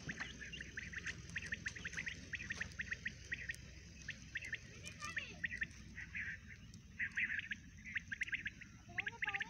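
Small birds chirping: a dense, irregular run of short, high chirps, with a few lower, sliding calls about nine seconds in.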